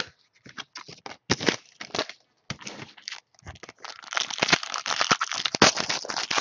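Foil wrapper of a basketball trading-card pack crinkling and crackling as it is handled and torn open by hand, in irregular bursts that thicken and grow loudest in the last couple of seconds.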